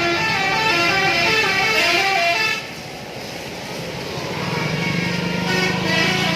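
Bus 'telolet' multi-tone Basuri musical horn playing a quick melody of short stepped notes, which cuts off about two and a half seconds in. After a quieter gap a second run of notes starts near the end over a steady low tone.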